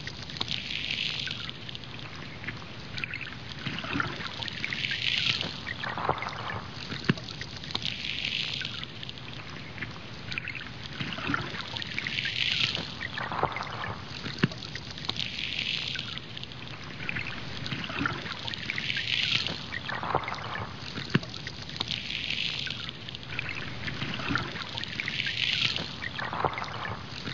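Muffled water sloshing and hiss, swelling and fading in a regular cycle about every three to four seconds, with scattered small clicks.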